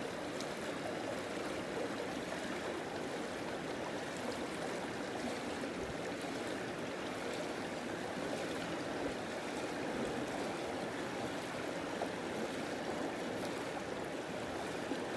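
Creek water running, a steady even rush.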